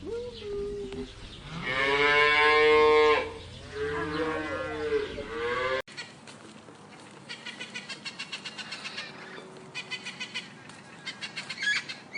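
A cow mooing three times: a short call, a long loud one and a third drawn-out one. After a sudden cut, a faint, rapid clicking chatter comes in several short bursts.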